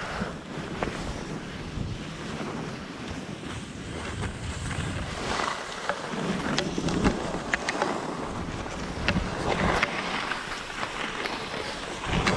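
Wind rushing over the microphone with skis sliding and scraping on snow during a downhill run, with scattered sharp ticks along the way.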